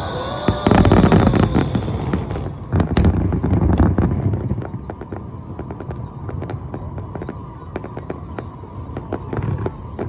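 Aerial fireworks: two big shells burst with deep booms about half a second and three seconds in, followed by dense crackling that runs on through the rest. A high whistling tone fades out in the first two seconds.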